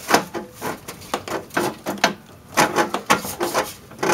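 Irregular light metal clicks, knocks and scrapes as hands work a replacement muffler into place on its mounting studs under an air-cooled Volkswagen Beetle.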